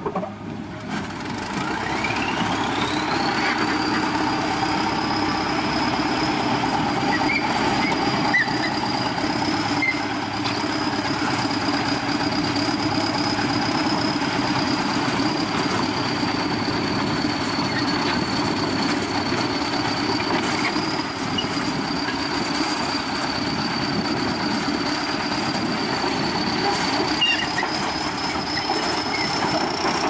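Crawler bulldozer's diesel engine revving up and running hard, with a high whine that rises in pitch a couple of seconds in, holds steady, and climbs again near the end.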